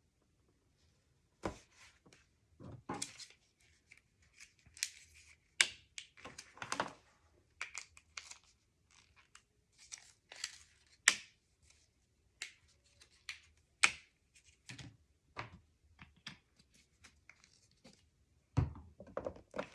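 Card stock and paper being handled and pressed into place on a work table: short rustles and scrapes with many irregular sharp taps and clicks.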